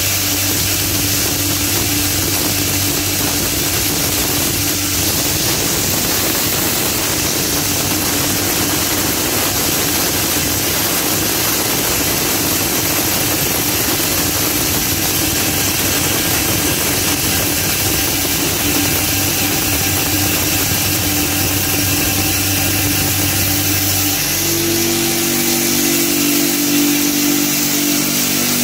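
Maize crushing machine running steadily under load, crushing dried maize kernels into chicken feed: a constant mechanical hum under a dense grinding noise. About 24 seconds in, the pitch of the hum shifts to a new set of tones.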